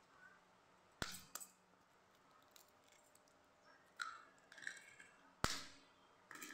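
Eggs knocked against the rim of a stainless-steel pot to crack them: a sharp knock about a second in and a louder one about five and a half seconds in, with light shell-and-hand handling between.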